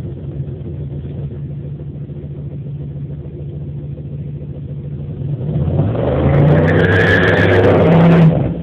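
A 2006 Chevrolet Monte Carlo SS's straight-piped 5.3-litre V8 runs at low revs, then revs hard about five and a half seconds in as the car launches into a burnout. A tyre squeal rises over the exhaust note. The loud part cuts off suddenly near the end.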